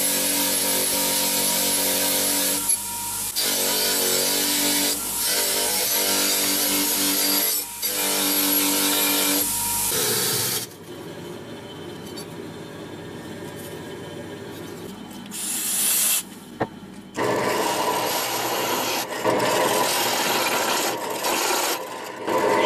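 Bench-grinder wire wheel scrubbing rust off a steel cleaver blade, the motor hum running under the scraping. About ten seconds in it drops away to a quieter stretch. From about seventeen seconds a drill press bores into the steel blade with a step drill bit, the cutting noise rising and dipping as pressure comes and goes.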